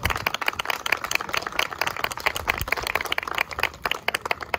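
Applause from a small group of people: many irregular hand claps overlapping.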